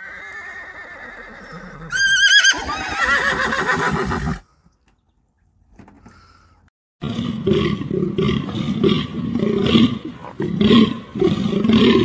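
Plains zebra calling: a high, wavering whinny-like call, then after a short pause a long run of repeated barking calls, two or three a second.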